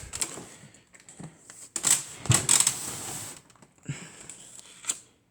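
Handling noise: irregular clicks, knocks and rustles, loudest about two seconds in, with a few more sharp clicks near the end.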